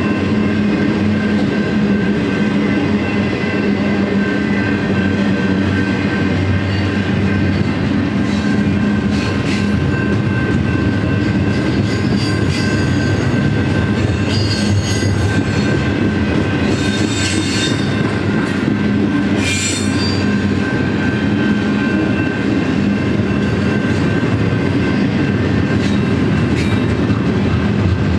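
Double-stack intermodal container well cars rolling past at speed, a steady rumble and clatter of wheels on rail. A thin steady high squeal runs over it, with a few short, sharper squeals or clanks in the middle.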